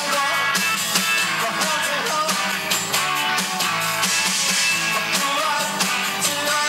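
A rock band playing, with strummed electric guitar over regular drum hits.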